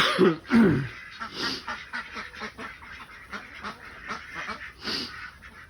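Domestic ducks quacking, with a few loud, downward-falling quacks in the first second, then softer, rapid quacking and chatter from the flock.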